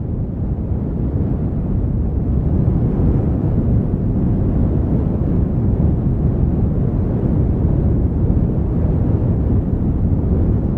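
Wind rumbling on an outdoor microphone: a dense, steady low rumble that swells in over the first second and cuts off abruptly at the very end.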